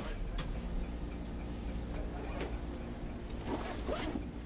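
Steady low hum of a standing high-speed train's onboard systems, heard inside the passenger coach. A few short knocks and clicks come from luggage being handled, with a brief faint voice near the end.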